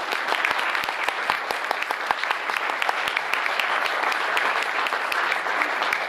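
Audience applauding: many hands clapping steadily.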